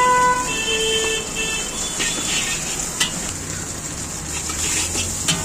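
Vehicle horns honking for about the first second and a half, over the steady hiss of a stir-fry in an iron wok. A steel ladle clinks against the wok a few times.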